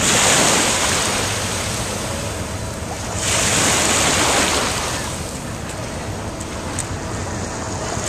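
Small waves breaking and washing up a sandy beach, swelling about every four seconds, with some wind buffeting the microphone.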